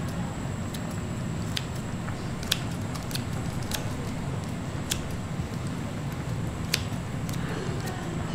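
Irregular sharp clicks of kitchen utensils, about six in all, over a steady low rumble.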